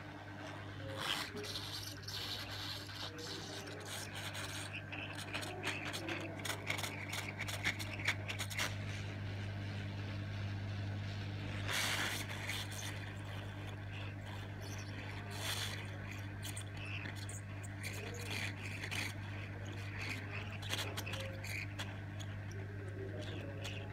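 Hot air rework gun blowing steadily at 400 °C, a constant fan hum under a hiss of air, with scattered small clicks and crackles as the solder paste is heated under the nozzle. Two louder rushes of hiss come around the middle.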